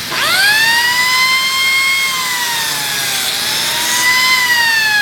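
Biscuit joiner's electric motor with a high whine, spinning up sharply at the start. About three seconds in the pitch dips as the blade plunges into the wood, then recovers and begins to wind down near the end.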